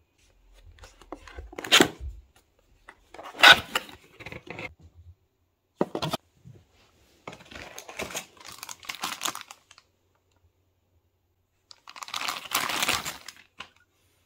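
Cardboard box being opened and handled, then a plastic bag crinkling as the media converter inside is lifted out of its tray and unwrapped: a series of short rustles, scrapes and crinkles, with the longest stretch of crinkling near the end.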